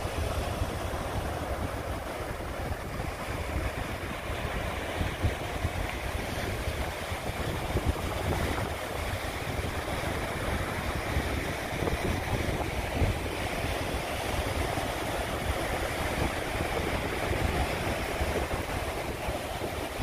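Strong wind buffeting the microphone with a low, unsteady rumble, over the steady wash of ocean surf.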